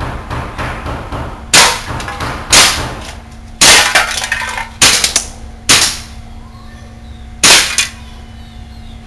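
WE SMG8 gas blowback airsoft submachine gun firing on full auto, a fast run of sharp reports that dies away after about three seconds. Six loud metallic clangs come from BBs striking a drink can, which is knocked over; the last clang falls near the end.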